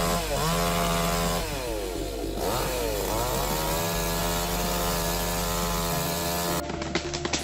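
Chainsaw engine revving up and down several times under throttle, then running at a steady high speed while cutting. A run of sharp cracks near the end.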